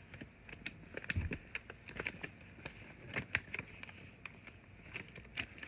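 Scattered light clicks and rustles of packaging and small items being handled by hand in a gift box.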